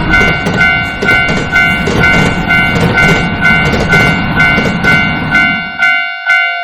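Railroad crossing warning bell ringing about twice a second over the rumble of a running train, which stops about six seconds in.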